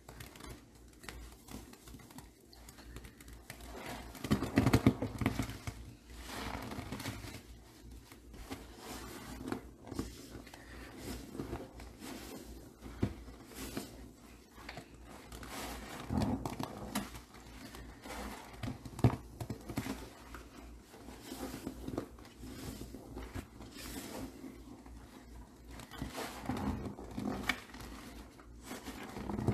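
A soapy sponge squeezed and rubbed by rubber-gloved hands in a tub of thick lather: wet squelching and crackling of foam. It comes and goes, with louder squeezes about five, sixteen and twenty-seven seconds in.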